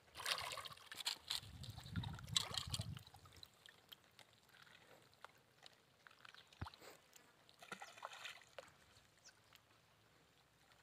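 Water sloshing and splashing at a rocky lake edge for about the first three seconds, then only faint lapping.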